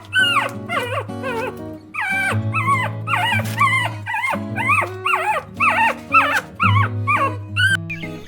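A rapid series of short, high animal calls, each rising then falling in pitch, about two a second, over background music.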